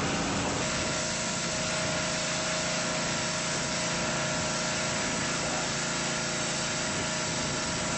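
Gas pressure washer's 212cc four-stroke engine running steadily, with a hissing noise over the engine note; the engine's tone shifts slightly about half a second in.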